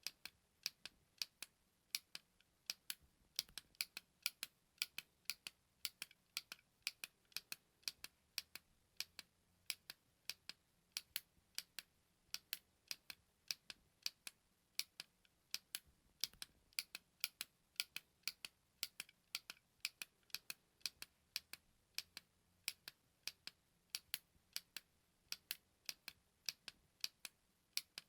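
Button clicking over and over: short, sharp clicks about two to three a second, some in quick pairs.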